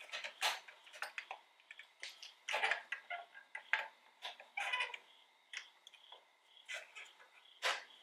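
Irregular light plastic clicks, taps and scrapes as a sequential LED turn-signal unit is handled and worked into a car side-mirror housing with gloved hands, a couple of longer scrapes in the middle.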